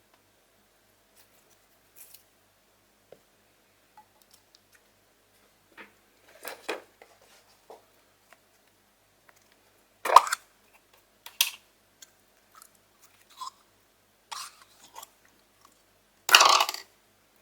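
Slime being worked by hand: short sticky squishes and crackles at irregular intervals, the loudest about ten seconds in and again near the end.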